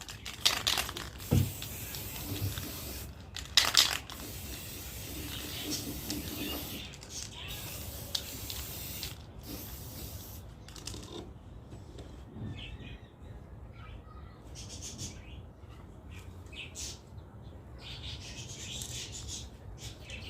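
Aerosol spray-paint can hissing in short bursts, with rattling handling between sprays. Small birds chirp faintly in the second half.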